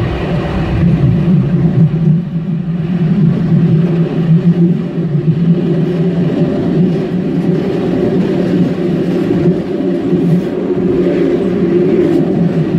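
Solaris Tramino S105P tram running along the track: a steady low rumble of wheels on rails and drive noise, with a hum underneath.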